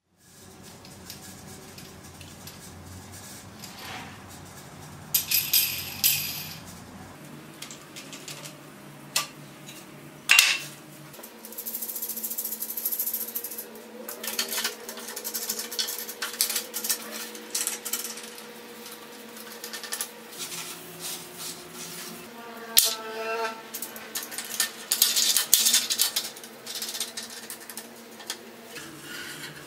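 Metal clamp parts and tools handled on a steel workbench: clinks, clacks and scrapes, with sharp clicks now and then and a quick run of clicking near the end.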